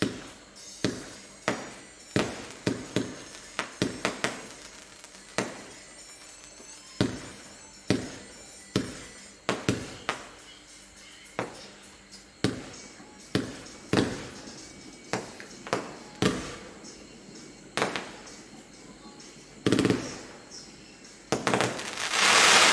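Low-noise consumer firework cake (1-inch and 1.2-inch tubes, 37 shots) firing shot after shot, a sharp bang about once a second at uneven spacing. Near the end comes a longer, louder rush of crackling noise.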